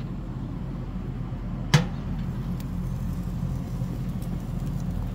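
A steady low, motor-like hum, with one sharp click or clank a little under two seconds in and a few faint ticks after it.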